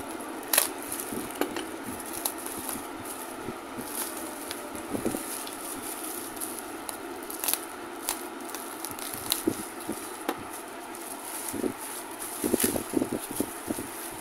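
Plastic bubble wrap crackling and crinkling as a parcel is cut open with a box cutter, in scattered sharp clicks, coming thicker near the end as the wrap is pulled apart.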